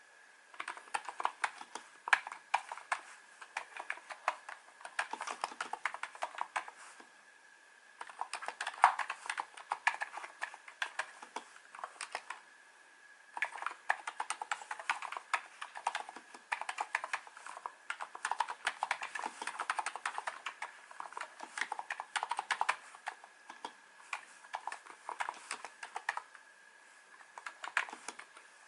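Typing on a NiZ Plum 87-key electrostatic capacitive keyboard with light 35 g keys: quick runs of keystroke clicks, broken by three short pauses. A faint steady high whine sits underneath throughout.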